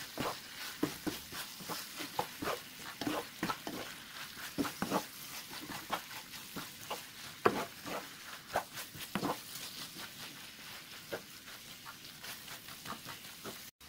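Wooden spatula stirring and turning beef strips, green pepper and onion in a nonstick frying pan as the sauce is mixed through, with irregular scrapes and clicks, several a second, over a soft sizzle.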